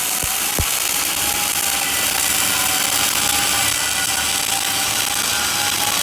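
Flux-cored arc welding arc crackling and sizzling steadily, with a couple of light knocks just after the start.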